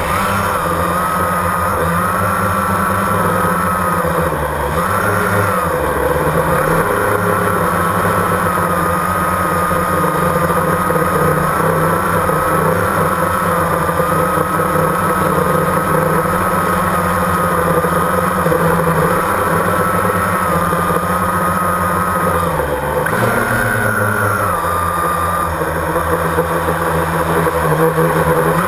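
Small camera drone's electric motors and propellers, heard from its onboard camera as a steady high whine over a low hum, rising and dipping briefly in pitch as the motors change speed twice.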